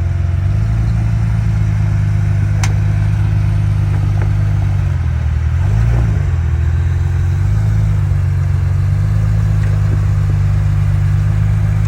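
Off-road vehicle's engine working under load as it crawls over rough terrain. Its pitch rises just after the start, dips and climbs again about six seconds in, then holds steady, with a single sharp click near three seconds.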